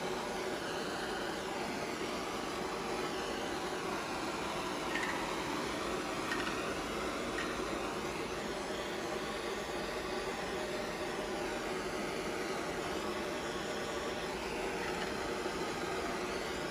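Handheld propane torch burning with a steady hiss.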